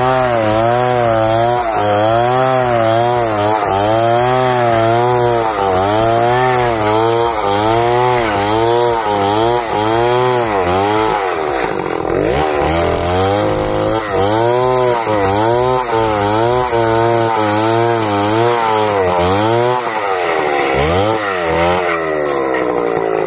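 Two-stroke petrol chainsaw ripping a log lengthwise along the grain. The engine pitch swings up and down again and again as the bar is worked through the wood, and sags away near the end.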